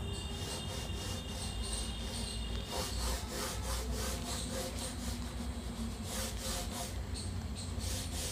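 Sky-blue oil pastel rubbed on drawing paper in quick back-and-forth strokes, a steady scratchy scraping with several strokes a second.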